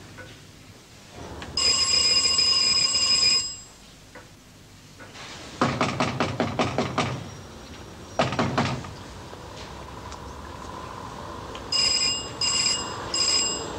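An electric bell rings steadily for about two seconds. A fist then knocks quickly and repeatedly on a glass window, about eight knocks, with a few more a second later. Near the end the bell rings again in three short bursts, as the bell push is pressed and let go.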